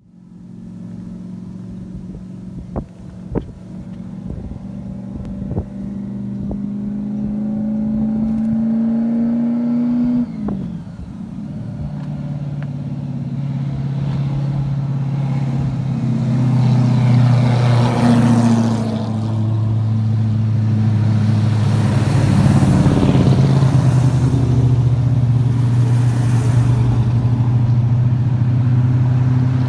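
Ford hardtop cars' engines running. An engine note climbs in pitch and drops sharply about ten seconds in, then a deeper, louder engine sound holds steady, loudest as cars pass close around the middle, with a few sharp clicks early on.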